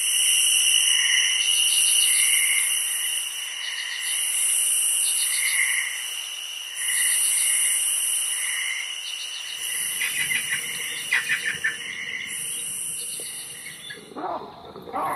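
Night chorus of insects, crickets among them: several steady high trills, with the highest buzz swelling and fading about every second and a half. A few rapid clicking calls come about ten seconds in. Near the end the chorus stops abruptly and lower animal calls take over.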